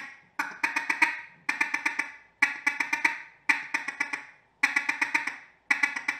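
Mallard duck call blown in a feed chuckle that imitates a single mallard hen: short runs of about five or six quick ticks, each run repeated about once a second at a slow, steady pace.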